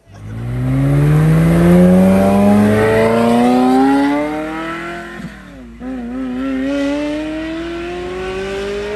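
Ferrari V8 sports car accelerating hard away, the engine note climbing steadily in pitch. About five and a half seconds in it dips briefly at an upshift, then climbs again as the car pulls away.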